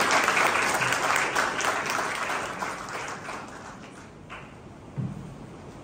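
Audience applauding, the clapping dying away over about four seconds.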